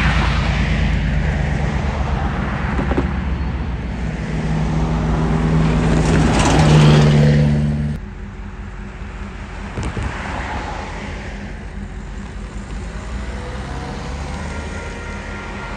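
Road vehicles passing close by, a car and then a van, over a low steady engine rumble. The rumble swells to its loudest about six to seven seconds in, then drops off suddenly about eight seconds in, leaving lighter traffic noise.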